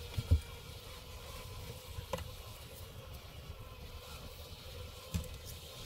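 Honeycomb being broken out of a wall-cavity beehive by hand: a sharp knock about a third of a second in, then softer knocks about two seconds in and near the end, over a low steady rumble.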